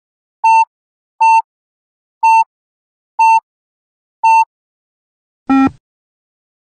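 Yo-Yo test timer's electronic beeps: five short, identical high beeps about a second apart counting down the last seconds of the rest, then one lower, fuller tone about five and a half seconds in, the signal to start the next shuttle.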